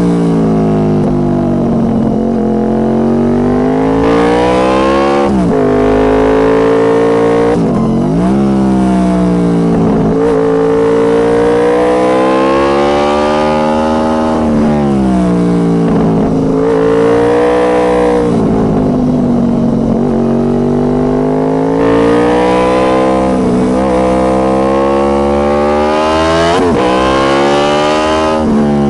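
Honda VFR800 Interceptor's V4 engine through a Two Brothers Racing aftermarket exhaust, picked up close to the exhaust, rising and falling in revs with the throttle. The revs drop sharply and climb back about four times.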